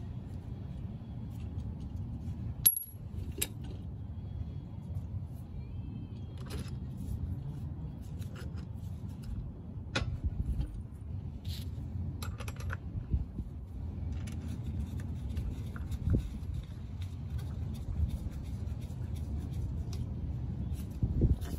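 Light metal clinks of the strut washer and top mount being fitted onto a compressed coil spring on a MacPherson strut, with one sharp clink about three seconds in and a few fainter clicks later, over a steady low background rumble.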